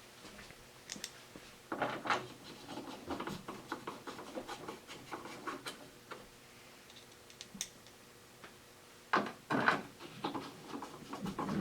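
Hands-on work at a vehicle's headlight area: scattered clicks, scrapes and rubbing of parts being handled and refitted, with louder knocks about two seconds in and again around nine to ten seconds.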